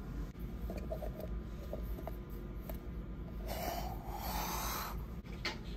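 A coffee-bean canister being opened: a rasping hiss of about a second and a half starting a little past halfway, with a few light clicks and a steady low hum beneath.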